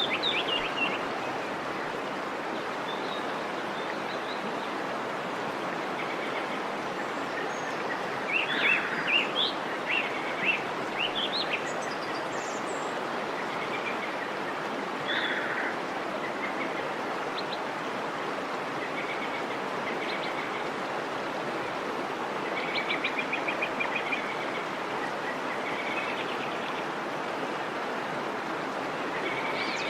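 Steady rush of flowing stream water, with small birds chirping in short bursts over it, busiest about a third of the way in and again a little past three-quarters of the way through.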